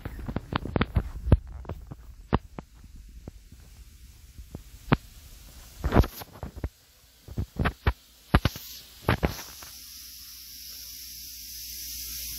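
Irregular knocks and thumps from a handheld phone being moved and handled while its owner walks around the layout. The thumps are thickest at the start and again about six to nine seconds in, and a steady hiss takes over near the end.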